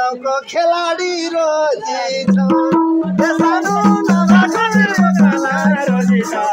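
Live Nepali dohori folk singing. A voice sings a melodic line alone at first, then from about two seconds in a steady rhythmic accompaniment with rattling percussion joins.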